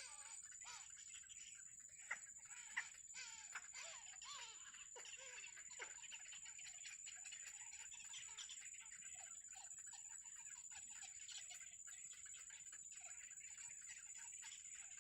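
Nestling birds cheeping faintly: many short chirps that rise and fall, thickest in the first few seconds, among small clicks and a steady high hum.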